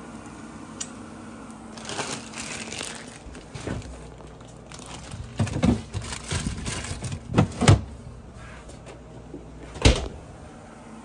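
Rummaging in a refrigerator: packaging crinkling and rustling, items knocking against shelves several times, and one louder thud near the end.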